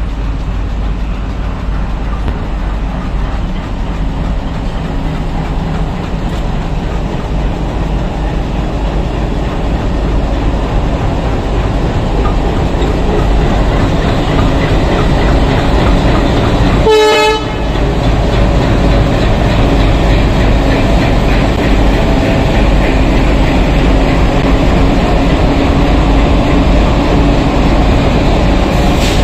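WDM-3D diesel locomotives rumbling slowly past at close range, engines running, with water jets spraying against their sides. A brief high-pitched tone sounds about seventeen seconds in.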